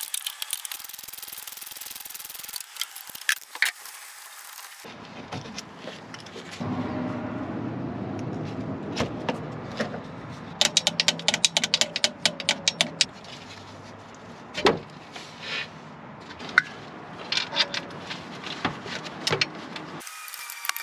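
Hand tools and metal car parts clinking and rattling as components are unbolted, with a run of quick clicks around the middle.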